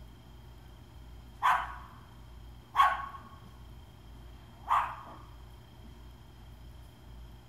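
A dog barking three times, single short barks about a second and a half in, near three seconds and near five seconds, over a faint steady hum.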